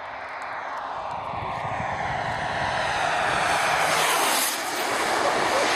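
Wren 54 model gas-turbine jet engine at full power on a low fly-by: a rushing whine that grows steadily louder, is loudest about four seconds in, and falls in pitch as the jet passes.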